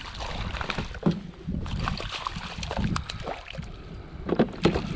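Small rainbow trout splashing and thrashing at the surface beside a kayak as it is played in and scooped into a landing net, with water sloshing. There are a few sharp knocks about a second in and near the end.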